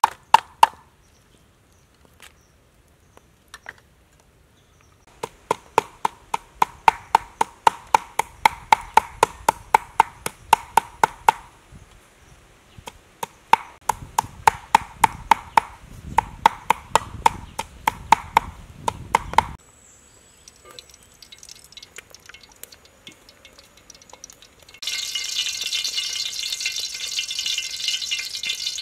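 Knife chopping on a wooden chopping board in two runs of quick, even strokes, about four a second. Near the end, oil starts sizzling steadily in a wok.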